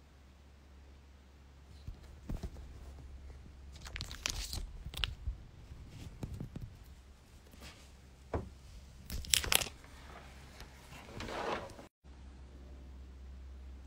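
Handling noise from a phone held and moved close to its microphone: a string of knocks, rubs and rustles, loudest about nine to ten seconds in, with the sound cutting out briefly near the end.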